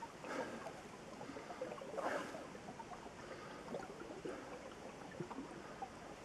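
Running water trickling under the ice of a frozen stream, faint and steady, with many small irregular plinks.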